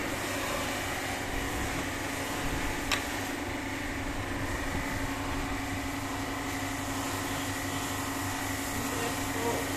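Steady machine hum, with a single sharp click about three seconds in.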